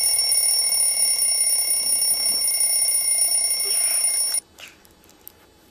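Electronic alarm clock sounding a loud, steady, high-pitched tone, cut off suddenly about four and a half seconds in.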